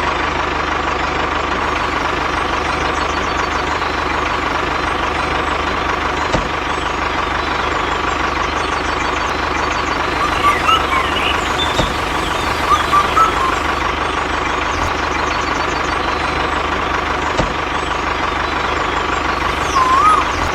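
A motor of a toy-scale machine running steadily with a constant whine, and a few short chirps about ten to thirteen seconds in.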